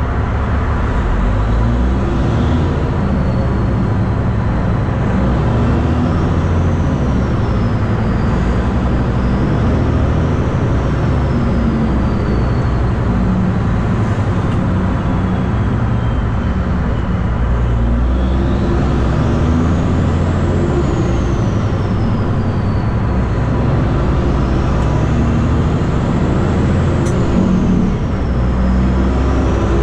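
A Caterpillar C15 Acert twin-turbo diesel in a 2011 Peterbilt 389 running steadily on the road. A faint high turbo whistle rises and falls several times over the engine's rumble.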